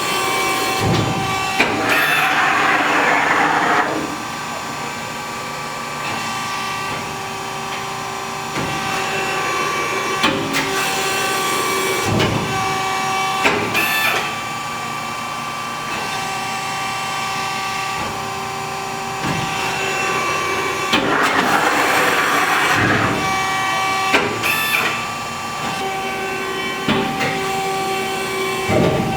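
A RAS 74.30 CNC sheet-metal folding machine running: a steady hum of several tones throughout, with two stretches of hissing about 2 and 21 seconds in and occasional clunks as it moves through its cycle.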